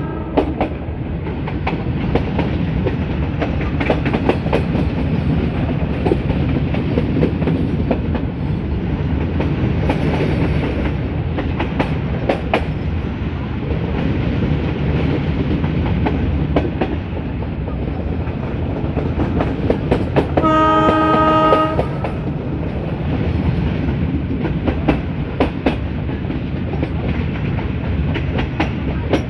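Metre-gauge train hauled by a YDM4 diesel locomotive running along, with a steady rumble and wheels clicking over the rail joints. The locomotive's horn sounds once for about a second, roughly two-thirds of the way through.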